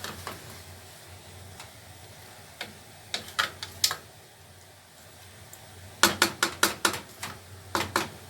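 Metal clicking and clinking against a cooking pot: a few sharp knocks about three seconds in, then a quicker cluster of clicks from about six seconds on.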